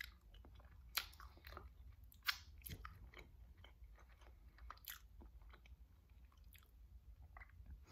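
Quiet close-up chewing of a buffalo chicken slider with cheese on a soft Hawaiian roll: scattered wet mouth clicks and smacks, with a few sharper ones about one, two and five seconds in.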